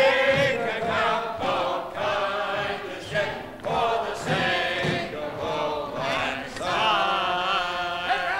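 A group of men and women singing together, held sung phrases with short breaks between them.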